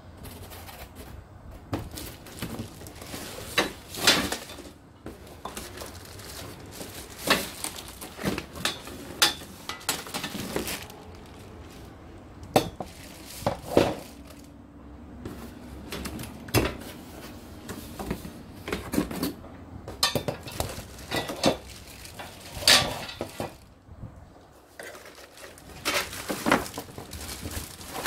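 Hands unpacking a flat-pack steel shelf unit: plastic wrap crinkling, cardboard packing pieces rustling and scraping, and the metal panels knocking and clinking now and then.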